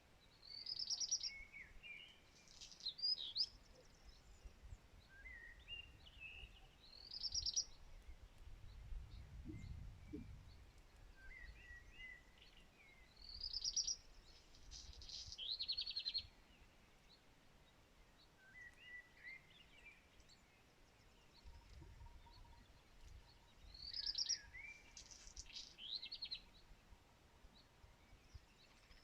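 A songbird singing short trilled phrases every few seconds, with softer twittering notes between them. A low rumble swells briefly about nine seconds in.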